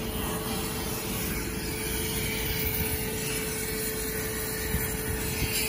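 Steady machine noise with a constant mid-pitched hum.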